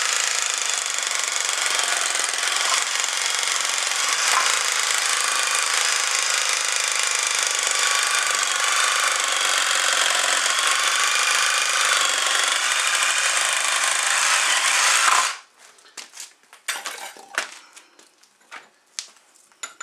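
Drill spinning a socket-reaming cutter down into an ABS fitting, shaving out glued-in PVC pipe: a steady, loud cutting whir that cuts off suddenly about fifteen seconds in. A few scattered light knocks follow.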